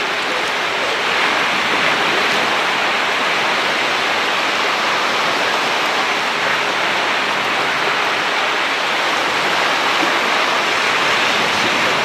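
Storm surf: waves breaking on a rocky shore in a steady, unbroken rush of noise.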